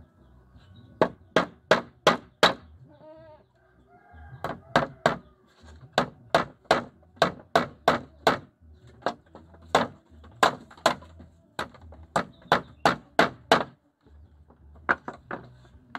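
A chicken clucking in quick runs of loud, sharp clucks, about three a second, with a short call about three seconds in.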